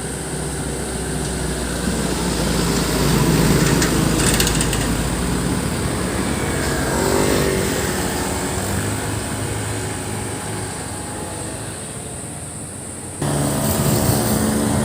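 Road vehicles with loud aftermarket exhausts running and revving, the engine note swelling and fading; about 13 seconds in the sound cuts suddenly to another, louder engine.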